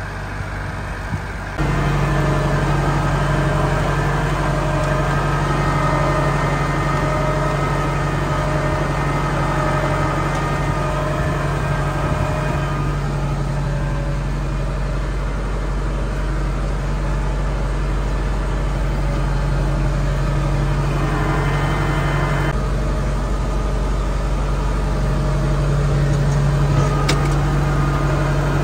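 New Holland 7740 tractor's diesel engine running steadily under load while pulling a four-furrow plough. Most of it is heard from inside the cab, and the sound gets suddenly louder about a second and a half in.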